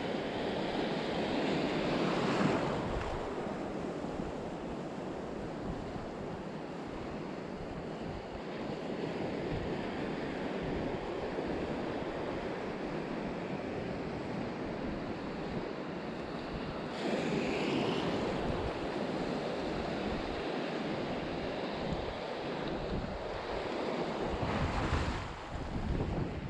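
Choppy sea washing and breaking around a wading angler, with wind buffeting the microphone. The surf swells louder three times: near the start, about two-thirds through, and near the end.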